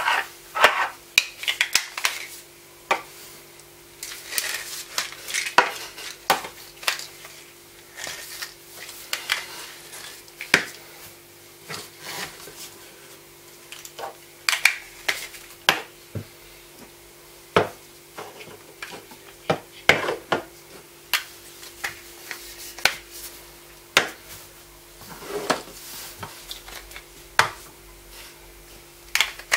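Clear plastic BlenderBottle GoStak storage containers being handled: irregular clicks and knocks of hard plastic against plastic, many in quick succession, with pauses between, over a faint steady hum.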